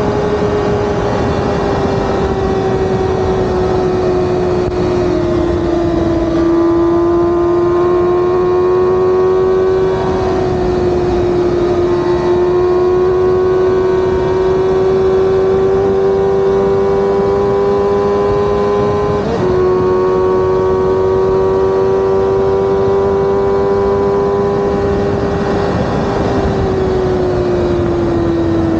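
Sport motorcycle engine running at a steady highway cruise, with wind rushing over the bike. The engine note holds nearly level, dipping and picking up a few times, then slides lower near the end as the throttle eases off.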